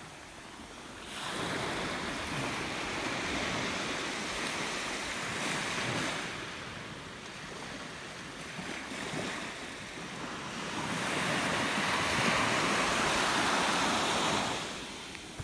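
Sea surf breaking and washing up a sandy beach. It comes in long surges, building about a second in and again more loudly from about eleven seconds, then falling away near the end.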